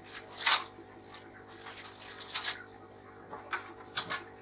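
Plastic parts of a Fluval 106 canister filter being handled while its O-ring is fitted: scattered rustles and light clicks and knocks, over a steady low hum.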